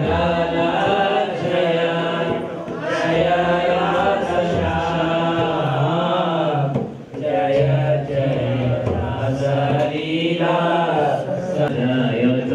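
Devotional kirtan chanting: voices sing long, wavering notes over a steady low tone, with a brief drop about seven seconds in.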